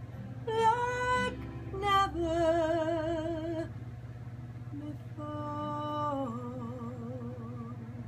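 A woman singing long held notes with wide vibrato, in three phrases, with acoustic guitar accompaniment under her voice.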